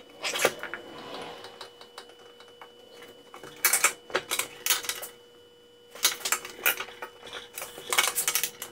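Irregular clusters of metallic clicks and clatter as a wooden block is fitted into a benchtop drill press's chuck and the chuck is tightened, with the motor off.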